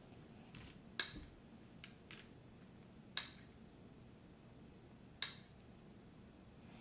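Scissors snipping small hard plastic mold pieces: three sharp snips about two seconds apart, with a few fainter clicks between them.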